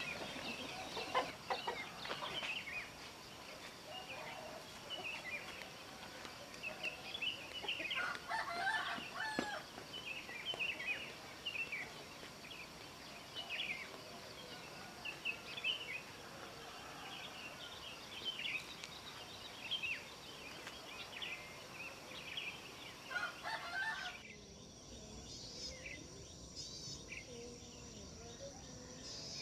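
Many short bird calls scattered throughout. About 24 s in the sound changes abruptly to a quieter, high, steady trill.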